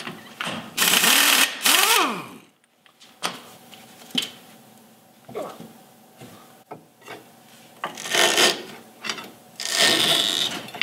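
Pneumatic impact wrench run in two short bursts about a second in, its motor winding down in pitch near two seconds, as it undoes the lower shock bolt on a Jeep's rear axle. A few sharp clicks of tools on metal follow, then two more short noisy bursts near the end.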